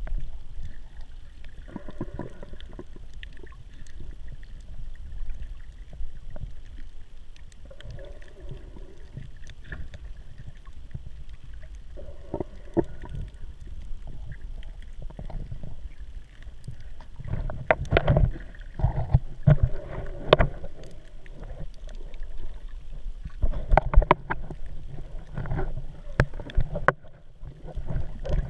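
Water sloshing and bubbling around a camera held just below the surface while snorkelling, heard muffled as a low rumble with short knocks. It grows louder and more splashy in the second half, in two spells.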